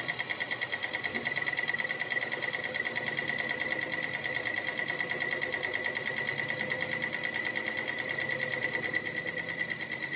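Metal lathe turning a repaired splined truck driveshaft: a steady high whine with a fast, even flutter, and a thinner, higher tone joining in about seven seconds in.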